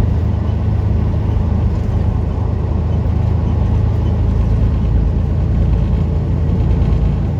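Truck's engine and road noise heard from inside the cab while driving: a steady low drone at an even level.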